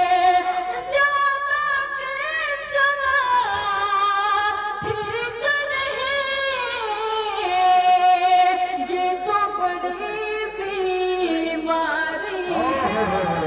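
A woman singing a sher in tarannum, the sung style of reciting Urdu poetry, amplified through a microphone. She draws out long held notes that slide up and down in pitch.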